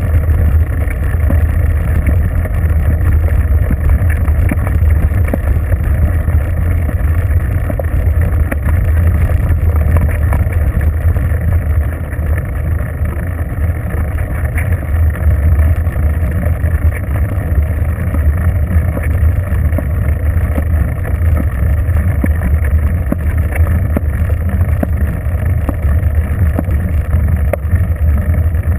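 Wind buffeting a bicycle-mounted GoPro camera's microphone as the bike rolls along a paved road: a loud, steady low rumble.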